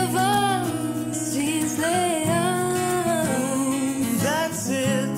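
Background song: a singer holding long, wavering notes over instrumental accompaniment.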